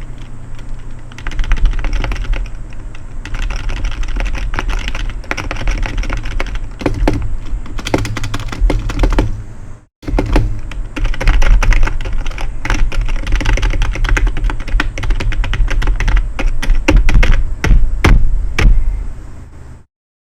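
Fast typing on the BAKTH GKM015TJ0 gaming keyboard, whose keys are membrane rather than mechanical switches, giving dense, irregular key clicks. The typing breaks off for a moment about halfway and stops shortly before the end, over a steady low hum.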